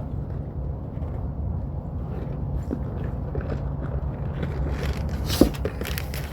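Hands working on an HVAC condenser fan motor assembly: clicks, scrapes and light rattles of parts being handled and fastened. They grow busier in the second half, with one sharp click about five and a half seconds in, over a steady low hum.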